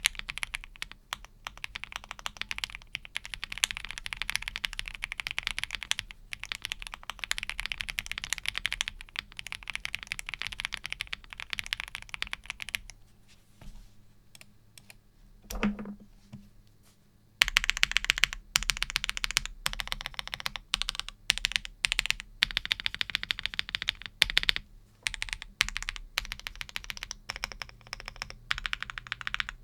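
Fast, continuous typing on a mechanical keyboard fitted with Akko CS Air linear switches, giving dense clacking keystrokes. About halfway the typing stops for a few seconds, broken by a single dull thump, then resumes.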